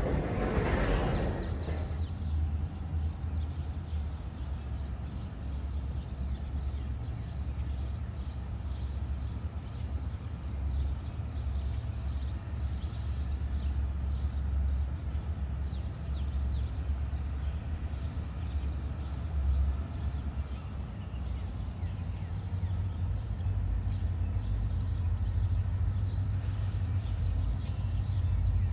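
The tail of a freight train rolling across a steel girder bridge, its wheels clattering, breaks off about two seconds in. After that comes the low, steady rumble of a diesel locomotive's engine as it approaches slowly, getting a little louder near the end.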